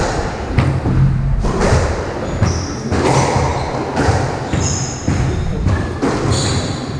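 Squash rally: the ball smacking off rackets and the court walls in repeated sharp impacts, with sneakers squeaking in short high chirps on the wooden court floor and running footsteps.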